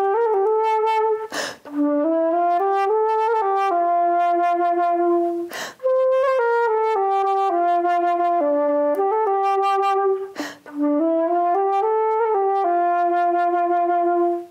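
Unaccompanied flute playing a slow, legato melody in its low-to-middle register, one note flowing into the next. The player takes a quick breath three times, about a second and a half in, near six seconds and near ten and a half seconds.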